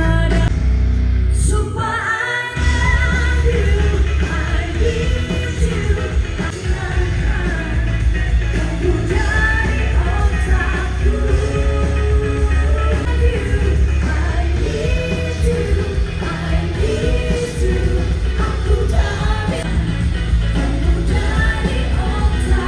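Rock band playing live with a lead vocal over a heavy, steady bass, with a short break about two seconds in.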